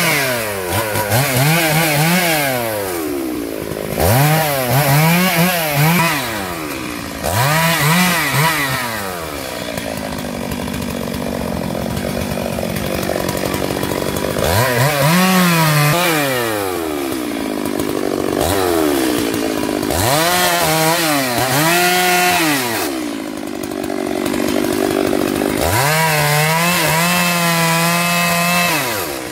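STIHL 382 two-stroke chainsaw revved up and let back down again and again while cutting up felled palm fronds, with a couple of longer stretches of steadier, lower running.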